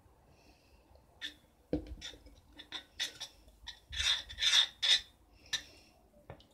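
A run of short rasping scrapes and rubs of a kitchen utensil working in a container, with a couple of soft knocks, loudest about four to five seconds in.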